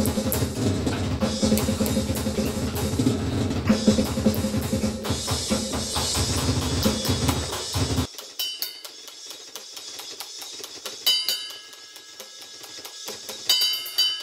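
Metal music driven by a fast, dense drum kit part. About eight seconds in, the bass and low end cut out suddenly, leaving a thin, sparse stretch of hits with a few ringing cymbal-like accents.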